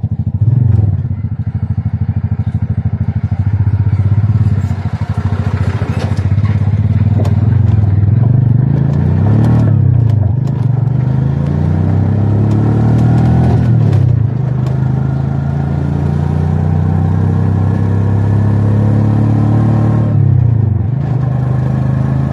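Motorcycle engine running under way. Its pitch climbs as it accelerates and drops sharply at gear changes about ten, fourteen and twenty-one seconds in, with occasional clatters over the rough gravel road.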